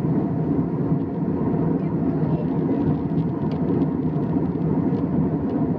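Steady drone of an airliner cabin in flight: engine and airflow noise, even and unchanging, with a faint steady hum over it.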